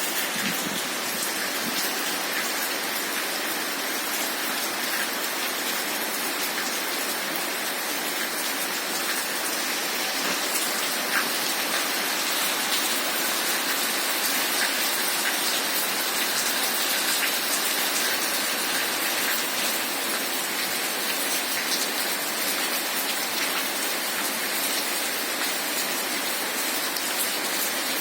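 Heavy rain falling steadily: an even hiss with many small ticks of drops hitting surfaces.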